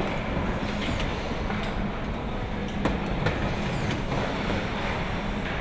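Car assembly hall ambience: a steady machinery hum with scattered clanks and clicks from tools and parts.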